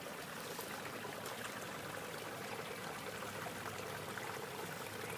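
Creek water running past a beaver dam: a steady, even rush.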